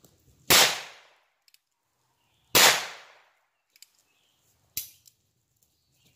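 Ruger Wrangler .22 LR single-action revolver firing .22 shot shells: two loud shots about two seconds apart, then a third, quieter crack about five seconds in. A light click comes before the second and third reports, typical of the hammer being cocked for each shot.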